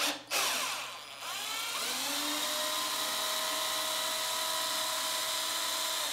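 Cordless drill-driver backing out a screw that holds the subwoofer's woofer in its cabinet. A couple of short bursts at the start, then the motor whine rises over about a second and holds steady.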